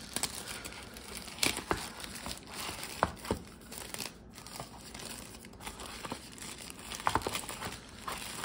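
Thin translucent plastic sleeve crinkling and crackling as a hand grips and lifts a wrapped phone gimbal out of its box, in irregular bursts of crinkles.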